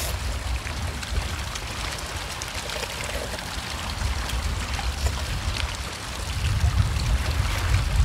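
Seawater washing among shoreline rocks, with wind buffeting the microphone in an uneven low rumble, and people slurping instant noodles and sipping broth.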